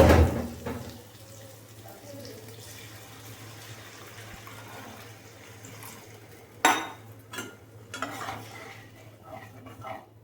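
Water poured into a pan of hot fried onion-and-spice masala, hissing up loudly at once and dying down over about a second to a quiet simmer. From about two-thirds of the way in, a metal spoon clinks and scrapes against the pan as the curry is stirred.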